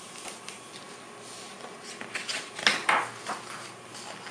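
Pages of a hardcover picture-book being handled and turned by hand: paper rustles and soft knocks against the cover, bunched together from about two seconds in, the loudest near the middle.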